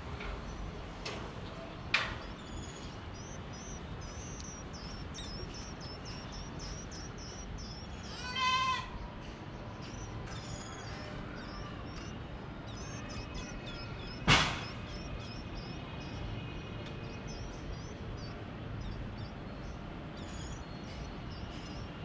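High, thin chirps from Indian white-eyes at the nest, repeated throughout. A single bleat with a wavering pitch sounds about eight seconds in. There is a sharp knock about two seconds in and a louder one near fourteen seconds.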